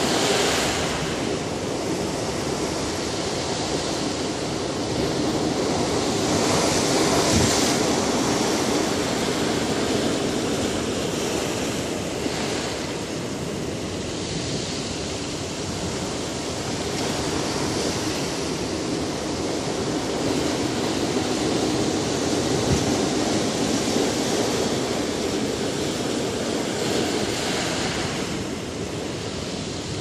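Sea surf breaking and washing over rocks: a continuous rushing hiss that swells and eases every several seconds as each wave comes in.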